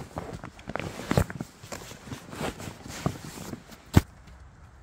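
Footsteps and knocks at a campsite, irregular and uneven, with one sharp thump about four seconds in.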